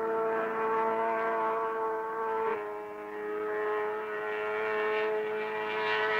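Racing outboard motor running steadily, its pitch stepping down slightly about two and a half seconds in.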